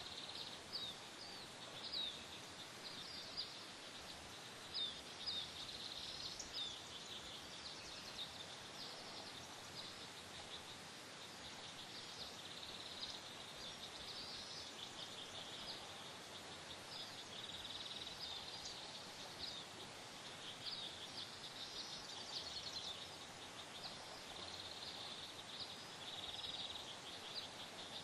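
Steady outdoor hiss with many small bird chirps, short and high-pitched, coming in quick runs throughout.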